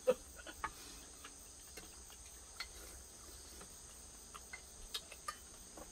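Steady high-pitched chirring of insects in the background, with scattered short clinks and taps of spoons and chopsticks against stainless-steel bowls.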